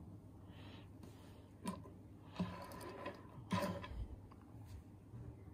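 Three faint clicks of carved ivory pendants and beads being set down and shifted on a wooden tabletop.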